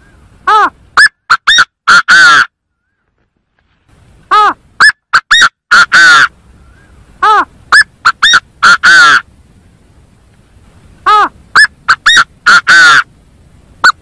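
Gà gô game bird calling: four loud phrases, each a string of short harsh notes ending in a longer drawn-out note, repeated about every three and a half seconds.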